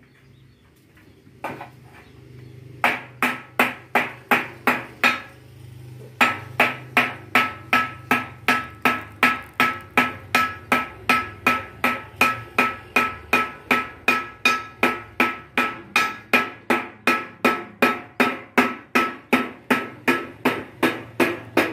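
Hand hammer striking a stainless steel dome panel, a few scattered knocks and then steady even blows at about three a second from about three seconds in, each with a short metallic ring.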